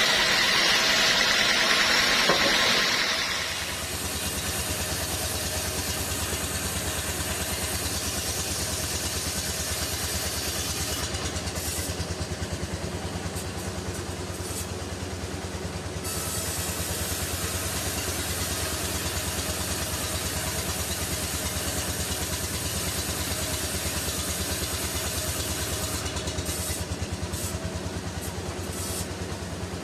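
Sawmill machinery: a loud, hissy sound with a whine for about the first three and a half seconds, then a steady engine-like drone with a low, fast pulsing hum.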